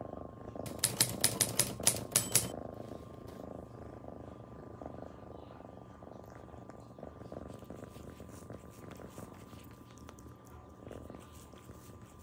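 Kitten purring steadily while licking its paw pads, with faint wet licking ticks. About a second in comes a quick run of about eight sharp clicks, the loudest sound in the clip.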